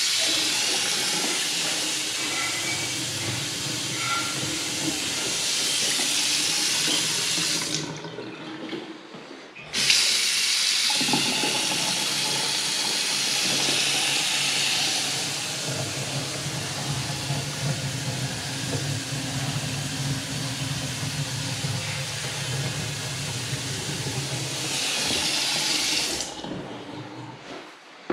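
Two newly installed Kohler Numista bathroom faucets running one after the other, each a steady stream of tap water splashing into an undermount ceramic sink basin. The first stops about 8 seconds in, and after a short pause the second runs until shortly before the end.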